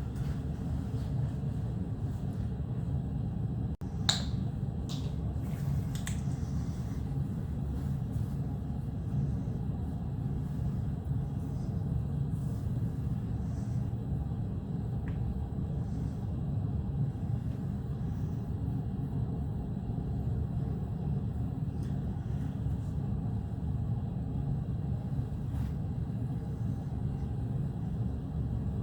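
Steady low rumble, with three sharp clicks about four to six seconds in.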